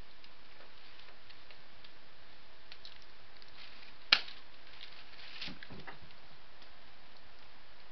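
Steady background hiss with scattered soft clicks and rustles from hands and clothing as a person signs. One sharp tap comes about four seconds in, followed by a few soft low knocks.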